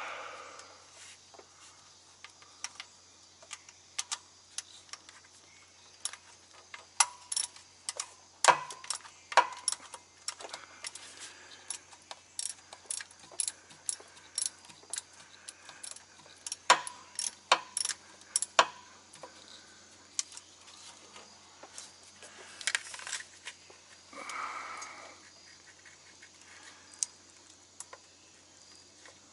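Hand tools clinking and clicking on metal while wiring and nuts are taken off a truck starter: irregular sharp metallic clicks, thickest through the middle, with a couple of brief scrapes near the end.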